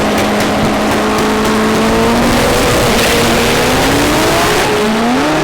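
Front-wheel-drive drag car's engine running hard at high revs, its pitch held steady and then climbing, with a brief dip and rise again near the end like a gear change.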